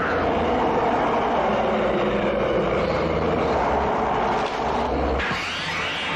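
Horror-film soundtrack: a loud, dense rumbling noise with a deep low rumble underneath. About five seconds in the rumble cuts off, giving way to rising, sliding tones.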